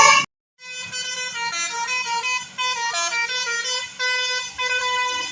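Indonesian bus 'telolet' horn, a multi-tone musical air horn, playing a quick tune of stepped notes that jump up and down. A brief gap comes just after the start, then the tune runs on.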